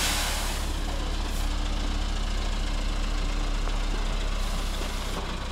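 Heavy truck's diesel engine running low and steady, with a short hiss at the start.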